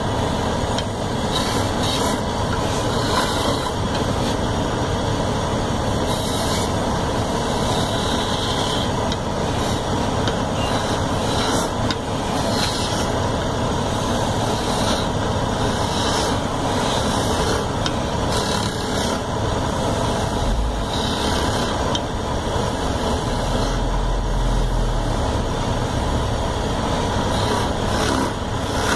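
Wood lathe running steadily while a hand-held chisel cuts into the spinning wooden sofa leg, the scraping of the cut coming and going over the machine's steady drone.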